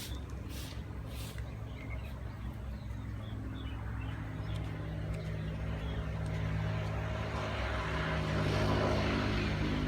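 A motor vehicle engine running steadily, growing louder over the last few seconds, with a few sharp clicks near the start.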